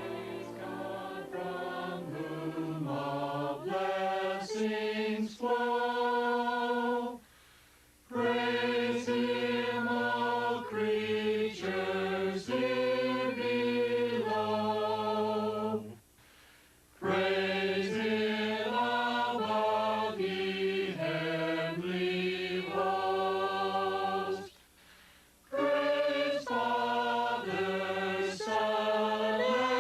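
A choir singing a slow hymn in sustained chords, phrase by phrase, with three short breaths of silence between phrases.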